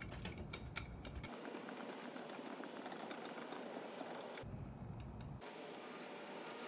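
Coleman 530 stove's hand pump being worked to pressurise the fuel tank: faint, repeated clicks from the plunger strokes.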